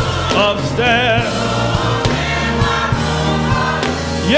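Church choir singing a gospel song, voices held with vibrato over steady low sustained notes. Near the end a voice swoops up into a long held note.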